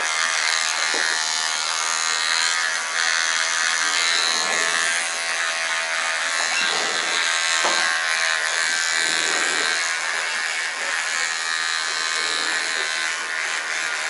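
Electric hair clippers running with a steady buzz while cutting the short hair at the back of the neck.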